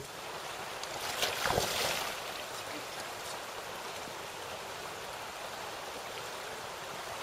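Steady rush of flowing river water, with a brief louder burst of noise about a second and a half in.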